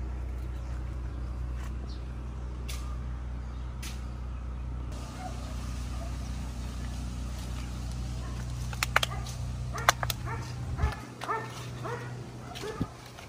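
A steady low rumble, then a few sharp clicks about nine seconds in, followed by short high yelps in quick succession near the end.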